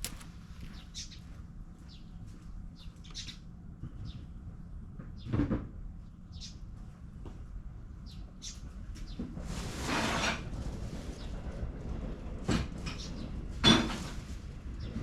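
Scattered light clicks and knocks, with a heavier knock about five seconds in, a rushing, rustling noise lasting about a second around the middle, and a sharp knock near the end, the loudest sound.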